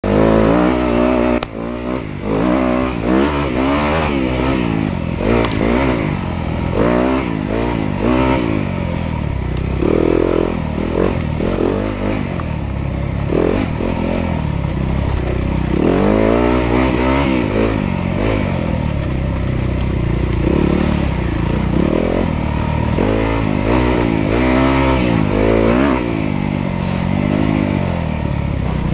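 Dirt bike engine being ridden hard along a trail, its pitch rising and falling again and again as the rider opens and closes the throttle and shifts.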